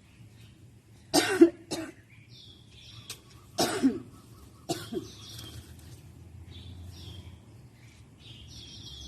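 A person coughing: four harsh coughs, two close together about a second in and two more a few seconds later. Faint chirping carries on underneath.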